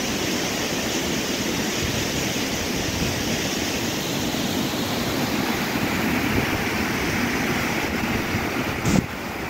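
Mountain waterfall pouring down a rock face into a stream, a steady rush of falling and splashing water. A short sharp knock sounds near the end.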